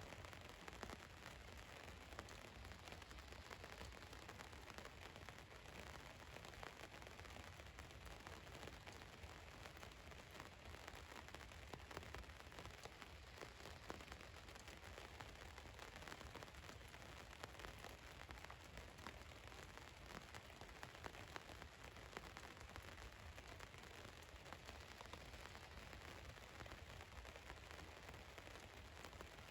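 Rain falling on a van's roof: a faint, steady patter with many small drop ticks.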